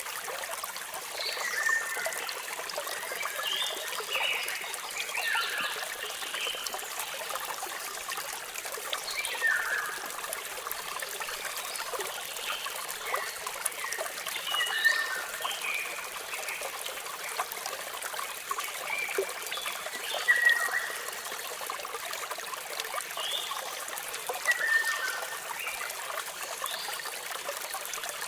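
Waterfall running steadily, with birds chirping on and off over it in short calls, many of them falling in pitch.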